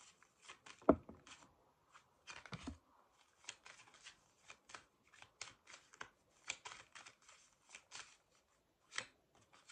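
A deck of tarot cards being shuffled by hand, the cards snapping and slapping together in quick, irregular clicks. A louder knock comes about a second in.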